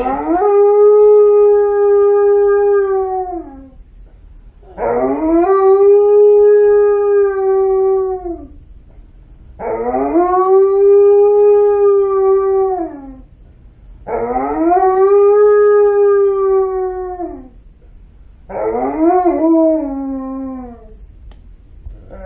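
Alaskan Malamute howling for attention: five long howls, about one every four and a half seconds. Each rises at the start, holds a steady pitch and falls off at the end, and the last is shorter and wavers downward.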